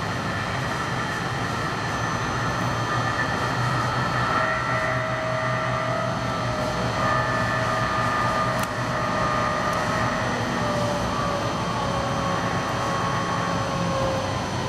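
Electric tram running along the street, heard from inside the passenger car: steady rolling and running noise, with a whine that falls slowly in pitch through the middle and later part.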